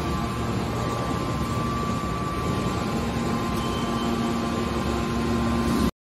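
Hydraulic metal baler running: a steady hum with a thin high whine from its hydraulic power unit as the cylinders drive the press lids. It cuts off suddenly at the very end.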